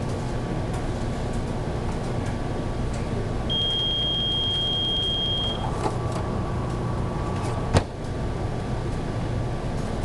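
Steady hum and rush of a fast-food kitchen's grill exhaust hood and equipment. A single long electronic beep from kitchen equipment sounds about a third of the way in and lasts about two seconds, and a sharp knock comes about three-quarters of the way through.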